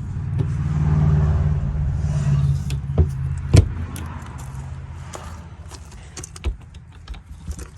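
Keys jangling and sharp metal clicks as the motorhome's outside storage compartment doors are unlocked and opened, the two loudest clicks about three seconds in. A vehicle engine's low hum fades out over the first five seconds.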